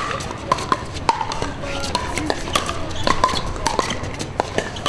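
Pickleball paddles striking the hard plastic ball: a serve and rally of sharp pops, several a second, overlapping with more pops from games on the surrounding courts.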